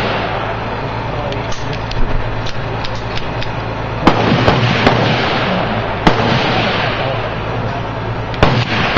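Gunshots at a shooting range: several sharp reports at uneven intervals, the loudest about four, six and eight and a half seconds in, over a steady background noise. Light clicks of a pistol being handled and loaded come before them.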